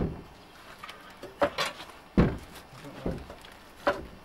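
About five short knocks and clunks from the steel boom of a Lucas Swinglift mini crane as its extension section is handled after being pulled out.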